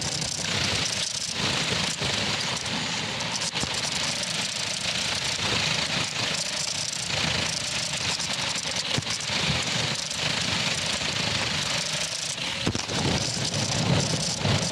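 Electric drive motors and plastic gears of a LEGO Technic RC kart whirring and rattling as it drives, with its wheels rolling over rough concrete, heard from on board.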